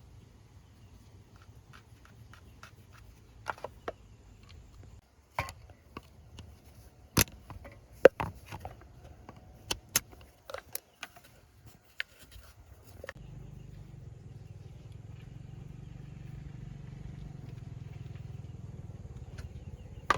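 Scattered sharp metal knocks and clanks of work on a box truck, then about two-thirds of the way in the truck's engine starts running with a steady low drone that slowly grows louder.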